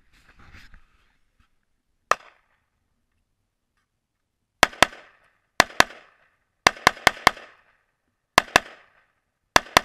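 AR-15-style rifle firing thirteen shots: one single shot about two seconds in, then quick pairs about a fifth of a second apart, with one run of four in a row, each shot a sharp crack with a short ringing tail.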